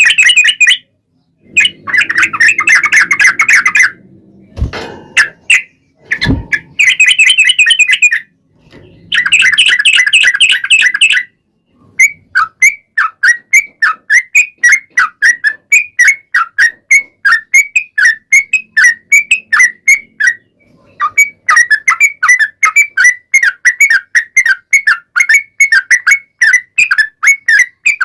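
A yellow-vented bulbul sings loudly. It gives bursts of fast chattering song, then a long run of quick repeated notes at about two to three a second. Two low thumps sound a few seconds in.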